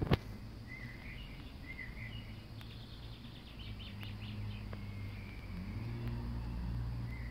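Small birds chirping, with a quick run of chirps a few seconds in, over a steady low hum that grows a little louder near the end. A single sharp click at the very start.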